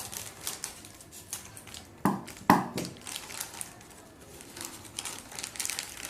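Plastic packaging crinkling and rustling as a small wire cutter is unpacked by hand, with two louder knocks about two seconds in.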